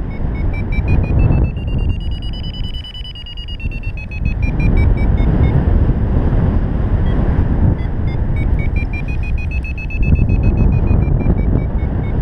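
Paraglider variometer beeping, its pitch stepping up and the beeps coming faster, then stepping back down, with a second rising run near the end; rising beeps are the vario's signal that the glider is climbing in lift. Heavy wind buffeting on the camera microphone underneath is the loudest sound.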